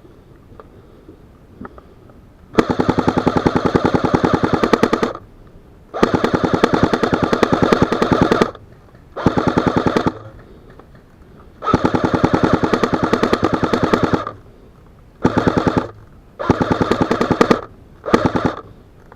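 Airsoft gun firing on full auto in seven bursts, the longest about two and a half seconds each and the last few short.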